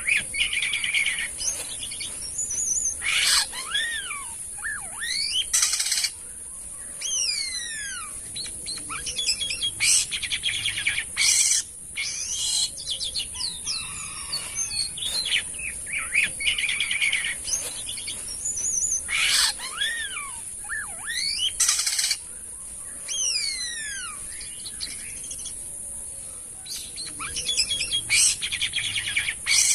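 Jalak kapas starling singing: a varied chatter of sweeping whistled slurs, fast trills and short sharp calls, the same run of phrases coming round again about every 16 seconds, over a steady high-pitched hiss.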